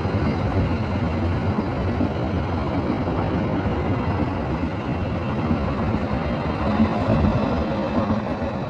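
Diesel train running past: a steady, loud rumble of engine and rolling wheels that eases off slightly near the end.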